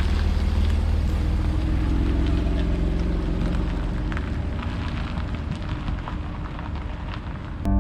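Harley-Davidson Fat Boy V-twin engine running under way, with heavy wind rumble on the microphone. It eases off over the second half and cuts off sharply just before the end.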